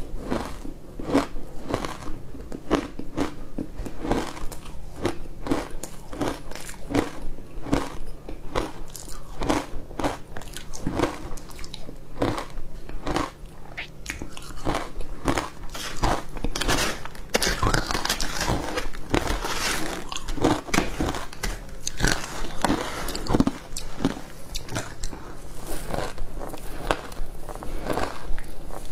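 Close-miked crunching and chewing of ice, with rapid sharp cracks as the cubes break between the teeth, about two or three a second. The crunching grows denser and brighter about two-thirds of the way through.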